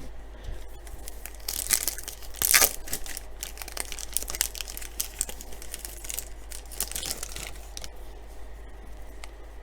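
Foil wrapper of a baseball card pack being torn open and crinkled, loudest about two seconds in, followed by lighter crinkling and rustling.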